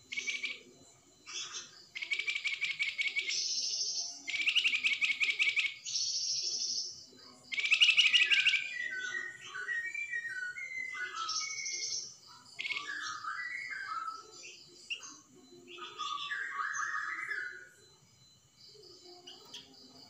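A flamboyan songbird singing: several bursts of fast, buzzing trills, the so-called 'shots' (tembakan) that keepers value, followed by strings of short whistled and warbling notes. The song thins out near the end.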